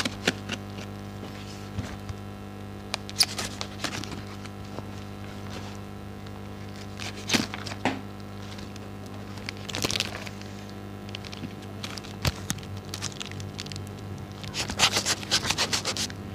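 A taped cardboard parcel wrapped in clear packing tape being handled: scattered taps, scrapes and crackles of tape and cardboard, with a quick run of crackling near the end. A steady low hum sits underneath.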